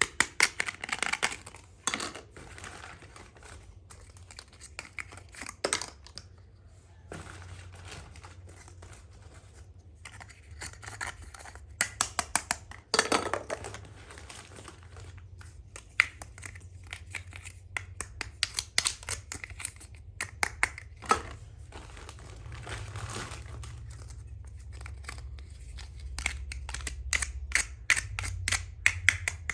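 Small plastic toy pieces and their packaging being handled: a run of sharp clicks and taps with bits of crinkling and scraping, busiest at the start and again near the end.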